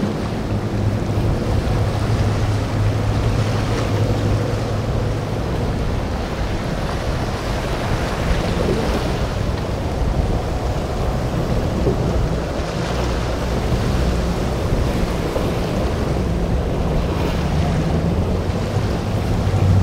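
Motorboat engines running through a rough inlet, their low hum swelling at the start and again near the end, over steady waves and wind noise on the microphone.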